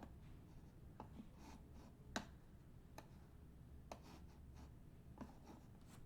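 Near-silent room with a handful of isolated soft clicks, about one a second, the loudest a little over two seconds in: computer keys or mouse clicks while names are being entered.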